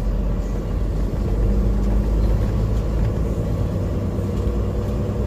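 Volvo VNL 860 semi truck heard from inside the cab while driving: a steady low engine drone over road and tyre noise.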